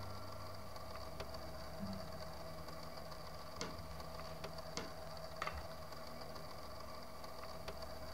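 A steady low hum of room tone, with a few faint, short clinks of cutlery on plates scattered through it.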